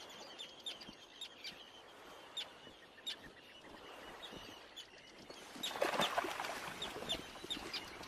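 Terns calling: short, sharp, high calls repeating one to two times a second, with a louder burst of rushing noise about six seconds in.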